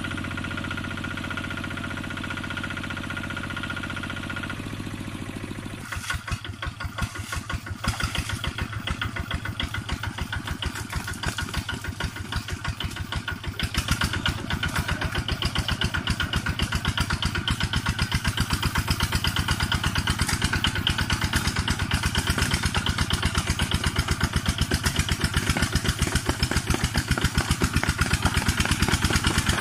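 Single-cylinder diesel engine of a two-wheel walking tractor chugging as it works through deep mud, its rapid firing beats plain from about six seconds in. The engine gets louder about fourteen seconds in and holds there.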